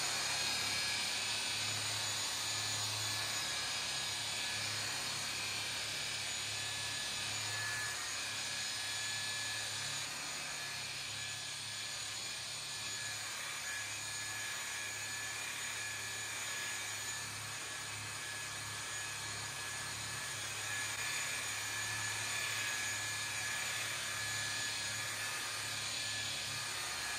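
Electric rotary polisher with a wool pad buffing fresh clear coat on a painted steel panel, running steadily: an even motor whine over a low hum.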